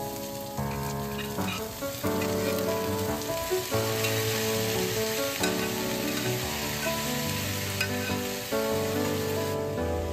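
Green beans sizzling as they fry in a stainless-steel wok, with a metal ladle stirring them and now and then clinking against the pan. Gentle piano music plays throughout.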